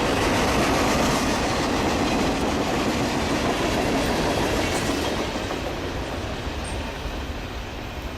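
Mixed freight train cars rolling past on the rails with a steady clattering wheel noise, growing quieter from about five seconds in.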